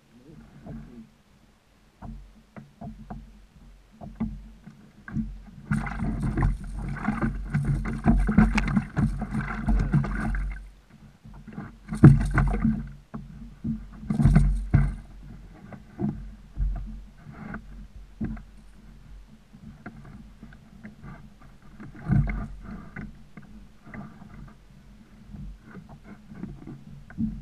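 Knocks, bumps and rustling on a plastic fishing kayak as gear and line are handled, carried through the hull to the mounted camera. A longer stretch of louder scraping and rustling comes about a quarter of the way in, followed by two loud sharp bumps.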